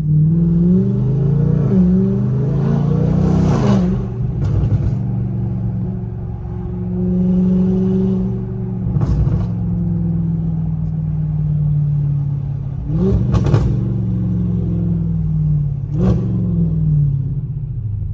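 Audi S8's twin-turbo V8 with catless downpipes accelerating and easing off, the engine note rising and falling, with about five sharp exhaust pops spread through the stretch.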